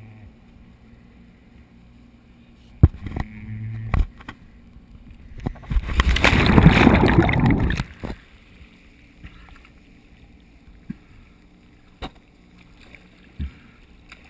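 A diver plunging into the sea off a dive boat: a loud rush of splashing water over the camera, lasting about two seconds, beginning about halfway through. A sharp knock and some clattering come before it, and afterwards there are only small water sounds and a few light knocks.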